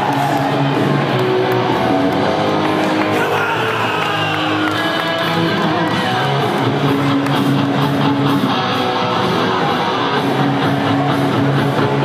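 Loud rock music with electric guitar, playing as a wrestler's entrance music.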